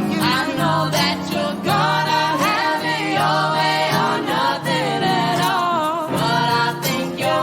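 Music: a live band playing, with several voices singing together in harmony over steady low notes.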